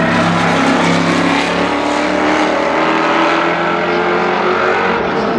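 6.5-litre Chevrolet V8 of a Spice Group C prototype running, its engine note held fairly steady.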